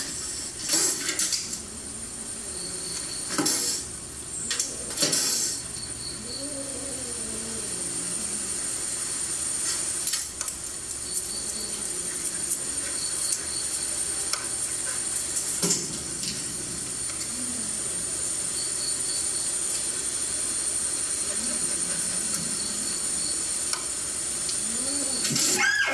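A kitten hissing and spitting in short bursts, a defensive threat at a dog, several times over the stretch, the strongest right at the start.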